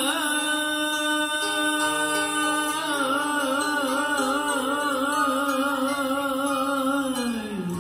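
A man's singing voice from a Vietnamese song played back over Bose 6.2 bookshelf speakers, holding one long note. The note is steady at first, takes on a vibrato about three seconds in, then slides down and fades near the end.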